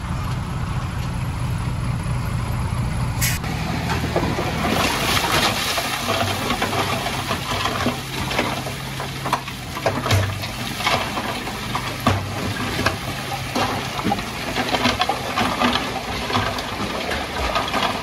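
Diesel dump truck's engine running as it backs to the tipping point. From about four seconds in, rock and dirt slide and tumble out of the raising bed with many knocks, over the engine.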